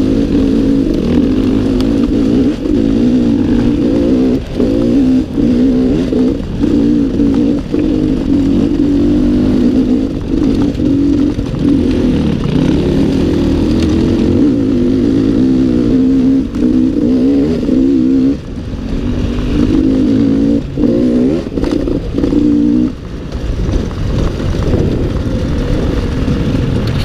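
Enduro dirt bike's engine, heard from the bike itself, pulling along a trail with the revs rising and falling and many brief drops as the throttle is shut or a gear is changed. Near the end it settles to a lower, softer running.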